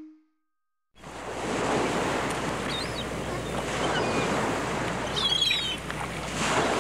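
Outdoor ambience: a steady rushing noise, like surf or flowing water, begins about a second in and carries a few faint bird chirps.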